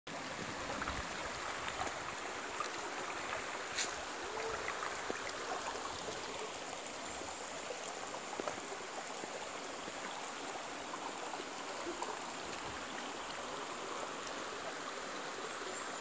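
Shallow mountain stream flowing over rocks: a steady, even rush of running water.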